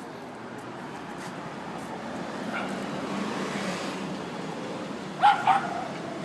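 A dog barking twice in quick succession near the end, over a rushing background noise that swells and fades in the middle.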